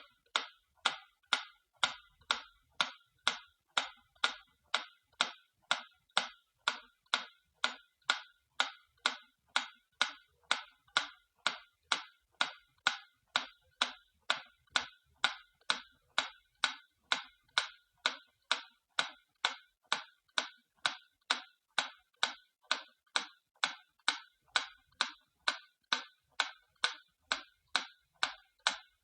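Antique clock ticking, a little over two even, sharp ticks a second at a steady pace.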